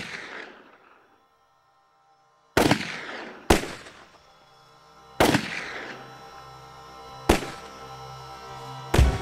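About five single gunshots at uneven gaps of one to two seconds, each ringing out with a long echoing tail, over quiet sustained music that grows in about halfway through.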